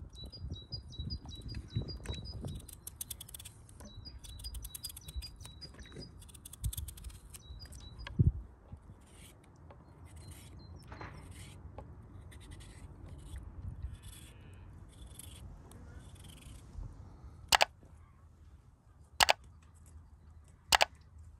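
Knife peeling and cutting raw potatoes over a wooden bowl: short scraping and slicing strokes with small taps. A bird chirps in a quick repeated pattern for the first several seconds. Near the end come three sharp mouse-click sound effects about a second and a half apart from a subscribe-button animation.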